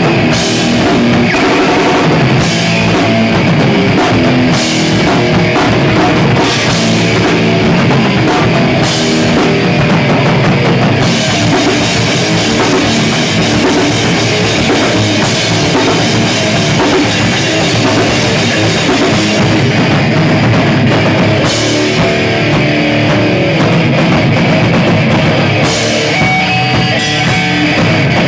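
Live heavy rock band playing loud, with electric guitar and a drum kit. Cymbal crashes land about every two seconds at first, give way to a steady cymbal wash through the middle, and come back near the end.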